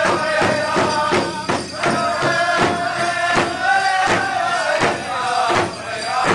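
Powwow drum group pounding a large shared drum in a steady beat, about three strikes a second, with the seated singers chanting a high, held song over it.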